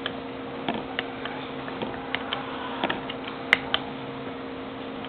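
Scattered light clicks and taps of an album's packaging and booklet being handled, the sharpest click about three and a half seconds in, over a steady low hum.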